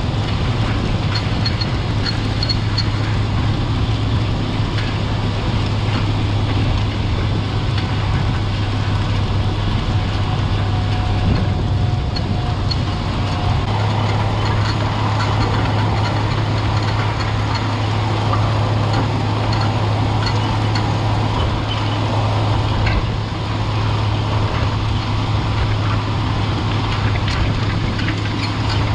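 White 4-270 four-wheel-drive tractor's diesel engine running steadily under load as it pulls a strip-till bar through the field, with a constant low drone.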